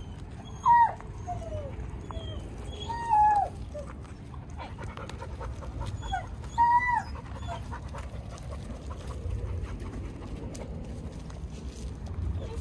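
A dog whining in short, high calls that fall in pitch. The three loudest come about one, three and seven seconds in, with a few fainter whines between them.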